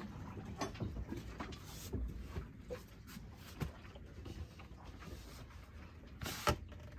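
Scattered light knocks and clicks over a low steady rumble, with a brief louder rustling burst about six seconds in.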